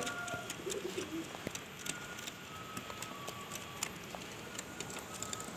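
Domestic pigeons cooing, a low burbling call about a second in, with scattered light clicks.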